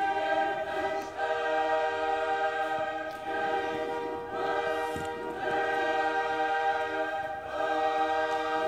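Background music with sustained, choir-like chords that change every second or two.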